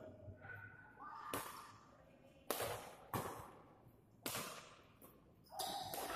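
Badminton rackets striking a shuttlecock in a rally: four sharp cracks, irregularly spaced, each followed by a short echo.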